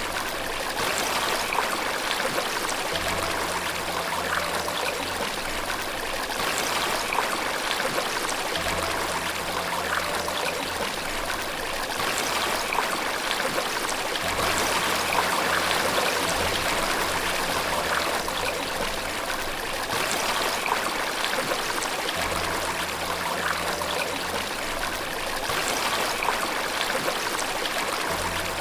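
Running water, a steady rushing splash without a break. Faint low held notes of soft piano music come and go beneath it every few seconds.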